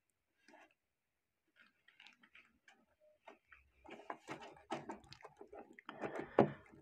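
Handling noise from a steel watch case and link bracelet being turned over by hand: small clicks and light metallic rattles, sparse at first and busier in the second half, with the loudest click near the end.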